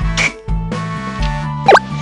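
Upbeat background music with a steady beat and bass line. Near the end, a quick sweeping sound effect briefly rises above it as the loudest moment.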